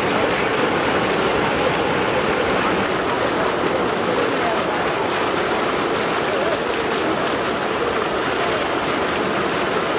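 Manu River floodwater rushing past in a steady, foaming torrent, with faint voices in the background.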